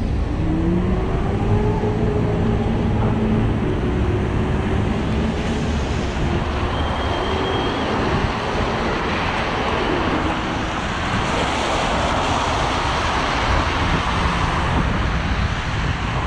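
Wet-street traffic heard from a moving bicycle: tyres hissing on wet pavement and wind on the microphone, with a vehicle engine rising in pitch as it pulls away in the first few seconds.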